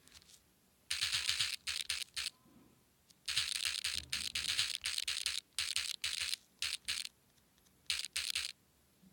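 Scratchy rustling in irregular bursts, each half a second to a second and a half long, starting and stopping abruptly: thumbs typing on a smartphone held close to the microphone.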